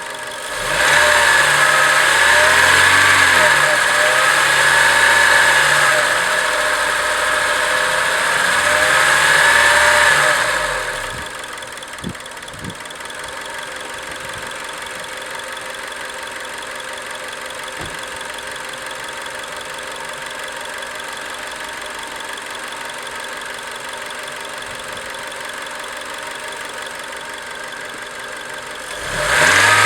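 Acura RSX Type S four-cylinder engine held at raised revs for about ten seconds, the pitch wavering up and down, then dropping back to a steady idle. The revs rise again near the end.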